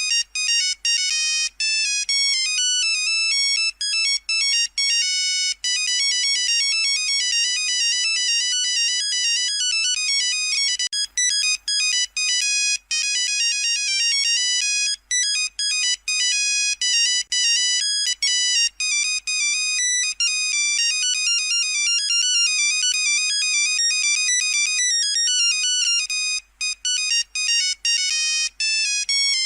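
Nokia 3310 monophonic ringtone playing a fast melody of bright beeping notes, looping with brief gaps between phrases.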